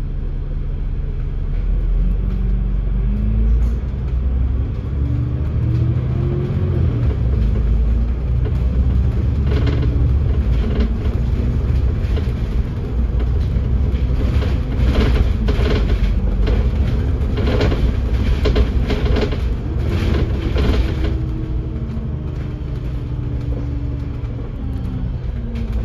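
A Dennis Enviro500 MMC double-decker bus on the move, heard from inside: the engine and drivetrain whine rises in pitch as it gathers speed early on, drops, and falls again as it slows near the end. In the middle there is a run of knocks and rattles.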